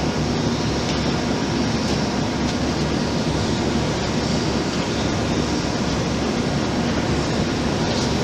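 Large vertical boring and turning mill running: a steady mechanical rumble with a low hum, unchanging throughout.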